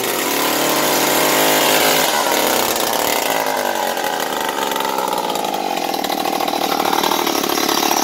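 Stihl TS 410/430 concrete cutoff saw's two-stroke engine running with no muffler fitted, loud and raw, just caught and held on the throttle. Its speed wavers over the first few seconds, then holds steadier and high.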